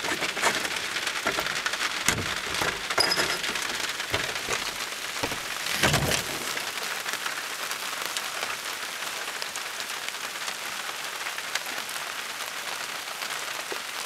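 Steady rain falling, an even hiss, with a few knocks in the first half, the loudest about six seconds in.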